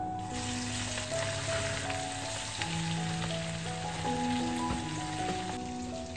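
Sardines deep frying in hot oil, a steady sizzle that breaks off briefly near the end.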